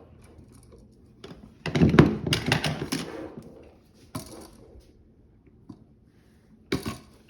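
Hand tools and a wiring device being handled: a quick cluster of clicks and knocks about two seconds in, then single knocks near the middle and near the end.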